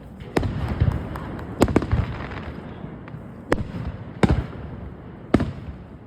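Aerial fireworks bursting: a series of sharp bangs, some in quick succession, with deeper booms under several of them.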